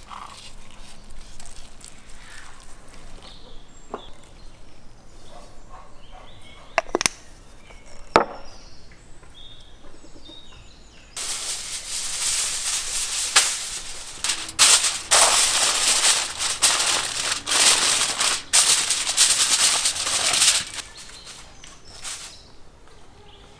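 Kitchen foil being pulled off a roll and crinkled: a loud crackling rustle that starts about halfway through and stops a few seconds before the end. Before it, quieter handling noises with a couple of sharp clicks.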